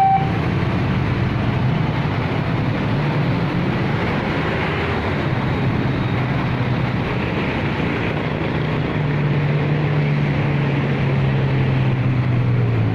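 A level-crossing warning siren cuts off just after the start, leaving the steady running of vehicle engines with a low hum that grows a little stronger near the end.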